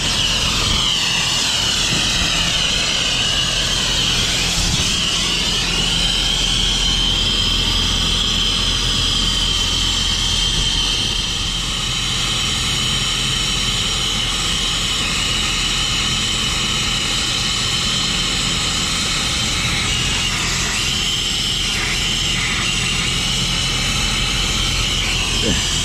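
Nitrogen hissing steadily out through the refrigerant piping, with a high whistling tone and a low hum underneath. The lines are being purged with nitrogen so they don't oxidize during unbrazing.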